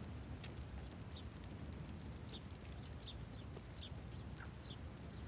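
Faint outdoor ambience: scattered short, high bird chirps over a steady low hum.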